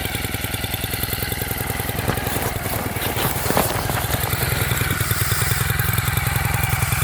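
Four-stroke gas-powered ice auger engine running steadily, a little louder towards the end.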